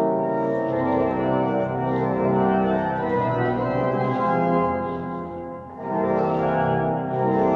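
Church pipe organ playing sustained full chords that shift every second or so, with a brief dip in volume about two-thirds of the way through.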